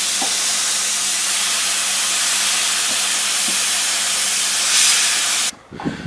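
Hot-air plastic welding gun blowing a steady hiss of hot air from its nozzle as it is worked along a polyethylene weld seam, with a faint low hum underneath. The hiss cuts off abruptly about five and a half seconds in.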